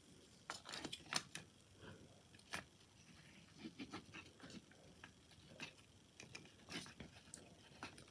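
Faint scattered clicks and light scrapes from a small HO scale die-cast model truck being handled and turned over.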